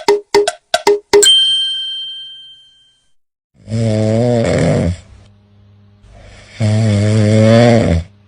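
A quick run of short chime-like notes ending in one ringing ding, then two long, buzzy snores about three seconds apart over a low steady hum.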